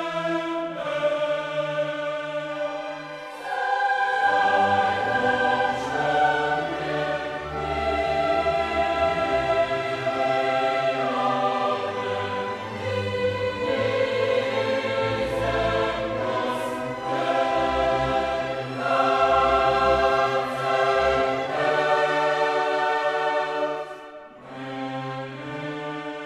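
Choral music with orchestra: a choir holding slow, sustained chords over strings, with a deep bass coming in about four seconds in. The music thins out and drops in level near the end.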